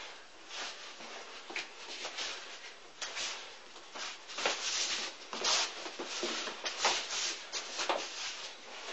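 Arms and clothing brushing and rubbing against each other, with feet shuffling, as two people trade strikes and blocks in a Wing Chun chi sao (sticky hands) drill. It comes as a run of short rubbing sounds that grows louder and busier about three seconds in.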